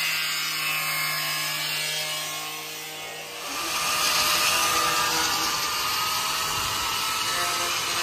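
Handheld angle grinder running on a motorcycle's rear body panel, a steady motor whine at first. From about three and a half seconds in it gives way to a harsher, hissier grinding noise.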